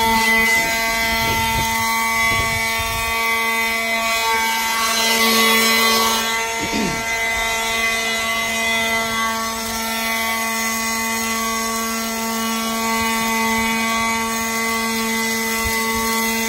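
Ryobi One+ 18-volt brushless cordless leaf blower running steadily: a constant whine from its impeller fan over the rush of blown air.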